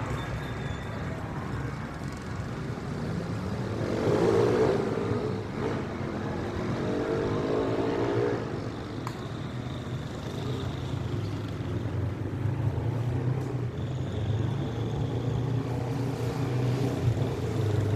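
Road traffic: car engines running and passing, with one vehicle louder and rising in pitch as it accelerates about four seconds in, and another engine running steadily near the end.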